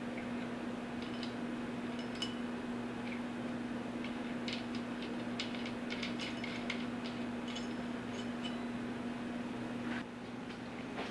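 Light metallic clinks and ticks as a Cummins diesel's injection pump gear and camshaft gear are handled and rocked by hand at their mesh, over a steady low hum that cuts off about a second before the end.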